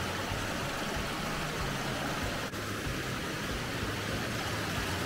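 Wind blowing over the microphone: a steady rushing noise with an uneven low rumble, breaking off for an instant about halfway through.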